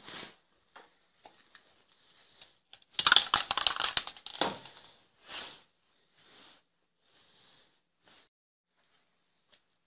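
Clicks and scrapes of things being handled, with a burst of rapid clattering from about three to four and a half seconds in.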